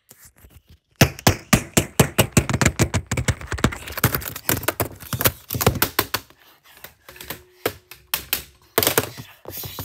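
Rapid, hard, irregular keystrokes and thunks, dozens of them, starting about a second in: frantic typing of a password.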